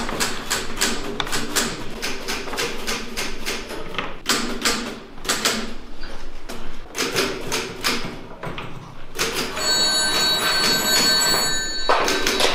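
A run of sharp, irregular tapping and clicking. Then, about nine seconds in, an old wall-mounted telephone's bell rings steadily for about two and a half seconds and stops abruptly: an incoming call.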